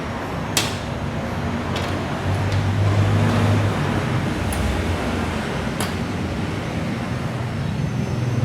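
Steady engine and traffic hum of motor vehicles, swelling about two to four seconds in, with a few light clicks.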